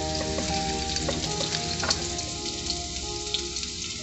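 Oil sizzling and crackling, as of food frying in a pan, under soft background music with held notes.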